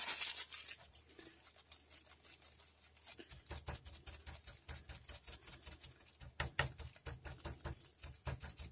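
Light, irregular clicks and rustles of a small plastic bag being handled while thermal paste is spread on a CPU, with a low handling rumble from about three seconds in.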